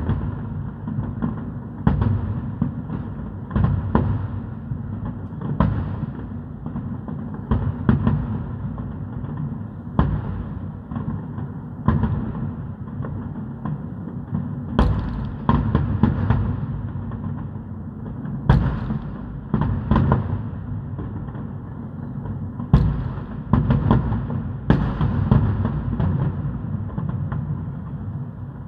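Aerial firework shells bursting in a rapid finale barrage: sharp bangs about one or two a second over a continuous low rumble, with the loudest bangs in the second half.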